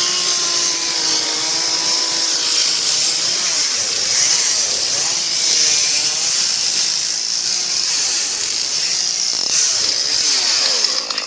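Chainsaw running hard while cutting, its pitch sagging and recovering several times as the chain takes the load.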